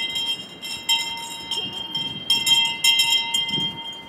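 Metal grape press being worked: quick, irregular metallic clicks over a steady metallic ringing.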